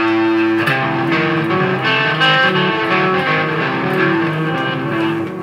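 Electric guitar playing: it comes in suddenly with a held note, then carries on with a melodic run of notes.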